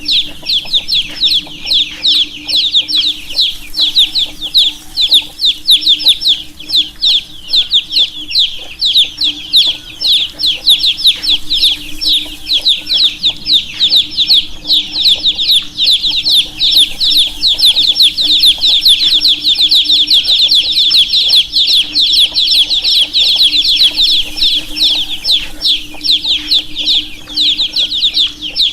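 A flock of baby chicks chirping continuously, a dense stream of rapid, high-pitched peeps overlapping each other, with a faint steady hum underneath.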